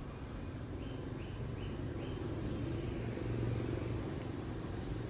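Steady low vehicle rumble, with four short high tones in quick succession about a second in.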